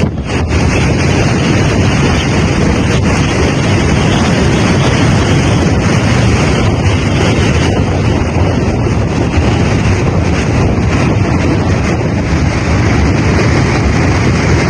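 Typhoon-force wind buffeting the microphone: a loud, unbroken rush of noise.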